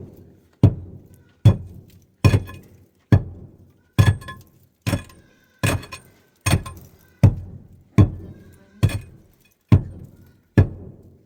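Steady blows of a metal tool striking a hard surface, about one every 0.8 seconds, each hit sharp with a brief metallic ring.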